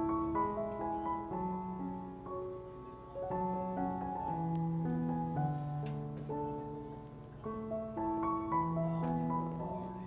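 Background piano music: single notes and chords held for about half a second to a second each, one after another without pause.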